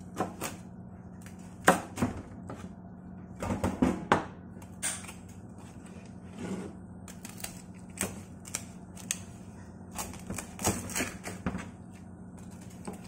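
Chef's knife sawing through the crisp crackling skin of oven-roasted pork belly, in irregular clusters of sharp crunches and cracks.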